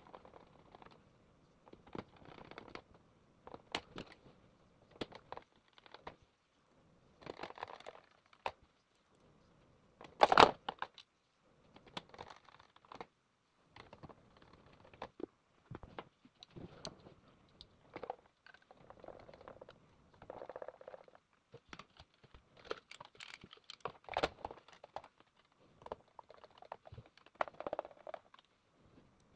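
Hands and a screwdriver working on the plastic chassis of an iRobot Roomba i3 as it is put back together: irregular clicks, taps and short scraping rattles of plastic parts, with one louder sharp snap about ten seconds in.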